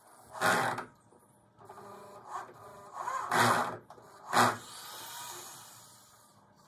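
Cordless drill driving screws into a pergola bracket in four short bursts, the motor speeding up and slowing with each one; the last burst trails off.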